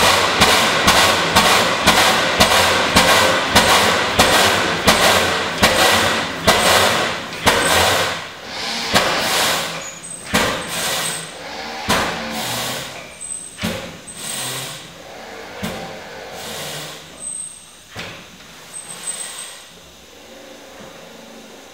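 1932 Pythagoras-Drott single-cylinder hot bulb engine running with a steady beat of about three strokes a second. From about a third of the way in, the beats slow and fade to roughly one a second and die away near the end, as the engine runs down.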